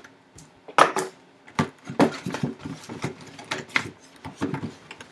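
A sealed cardboard box being handled and opened by hand: a run of irregular crinkles, scrapes and taps, the sharpest about one, two and four seconds in.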